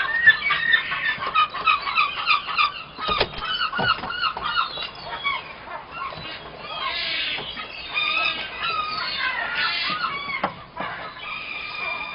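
Gulls calling: many short, high calls in quick, overlapping runs.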